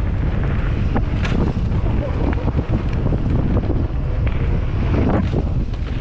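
Wind buffeting the microphone of a GoPro Hero 8 on a mountain bike riding fast down a dirt trail, a steady low rush, with the tyres rolling over loose dirt and gravel and a few sharp rattles from the bike.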